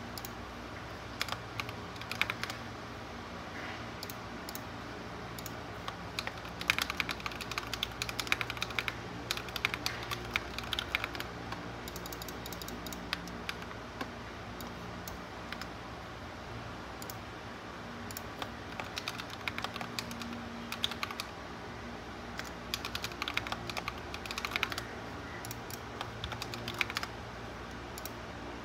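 Typing on a mechanical keyboard with white sculpted keycaps: quick runs of key clicks broken by short pauses, over a steady low hum.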